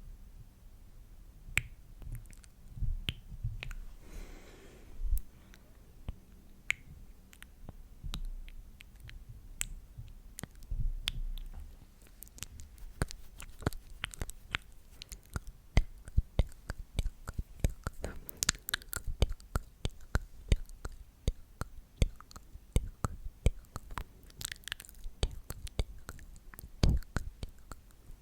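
Close-miked ASMR mouth sounds: wet clicks and smacks, sparse at first and turning rapid and dense about halfway through, with a few soft low thumps early on and a brief whisper about four seconds in.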